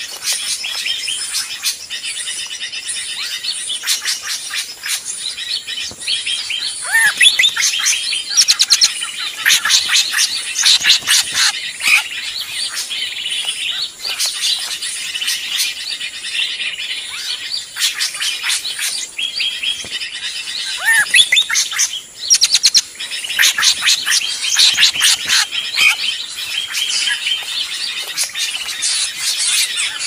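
Bird lure recording of noisy drongos (srigunting): a dense, unbroken chatter of chirps and whistles, with a couple of swooping whistled calls.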